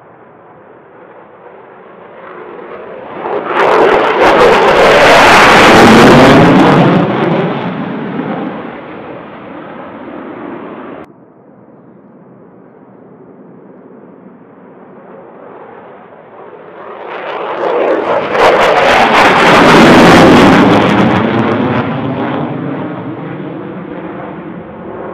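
F-15E Strike Eagle twin jet engines at takeoff power as two jets take off and climb out, one after the other. Each builds to a loud rush and then fades. The first cuts off suddenly about eleven seconds in.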